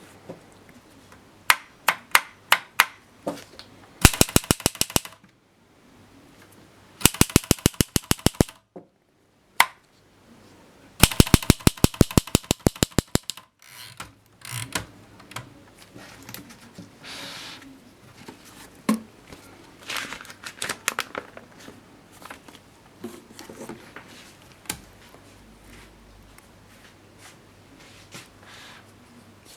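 A 1939 Erika M manual typewriter at work: a few single key strikes, then three fast runs of evenly spaced clacks, each lasting one to two seconds. Softer, scattered mechanical clicks follow in the second half.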